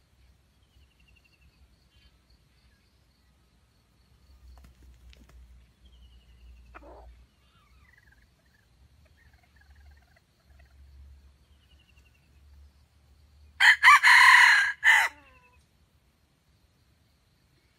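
A red junglefowl rooster crows once, a short, clipped crow of about a second and a half, about three-quarters of the way through. Faint high chirps from small birds come before it.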